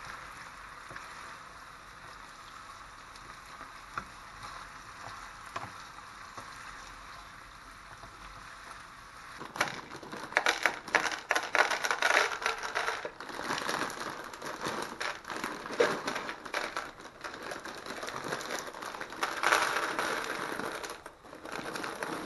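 Pieces of sausage sizzling steadily in a frying pan. About nine seconds in this gives way to the crinkling of a plastic pasta bag and the irregular rattle of dry fusilli poured by hand into a plastic bowl.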